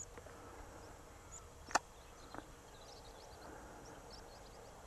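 Faint open-air ambience with scattered short, high chirps, broken by a single sharp click about a second and three-quarters in and a softer click just after.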